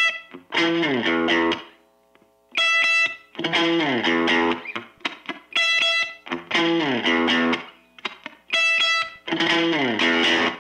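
Instrumental opening of a no wave rock song: an electric guitar riff repeating about every three seconds, a short high ringing chord followed by a run of notes sliding downward, with brief gaps of near silence between repeats.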